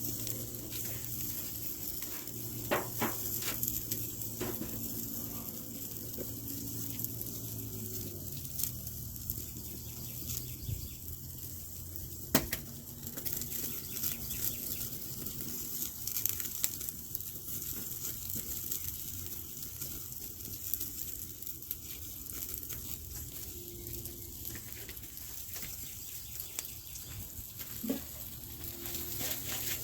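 Steaks and sausages sizzling on a grill: a steady hissing crackle with scattered sharper pops, over a faint low hum.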